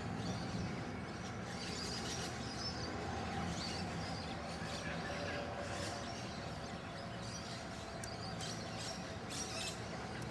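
Faint bird chirps over steady low background noise.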